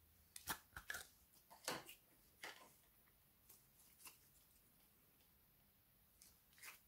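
Clear slime squishing and popping as it is worked out of a small plastic tub by hand: a quick run of short sticky pops and clicks over the first couple of seconds, a few scattered ones after, and a last little cluster near the end.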